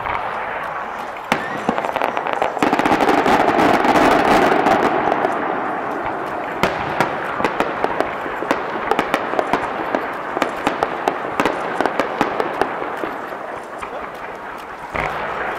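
Fireworks going off in quick succession: a dense, continuous crackle studded with many sharp pops, loudest a few seconds in, with a fresh burst starting near the end.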